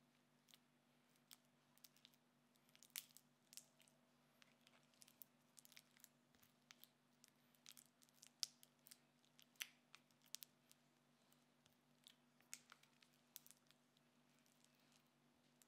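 A silicone spatula mashing chunks of butter in a glass bowl. It makes an irregular run of quiet squishes and sharp little clicks and taps as the blade presses the butter and knocks against the glass.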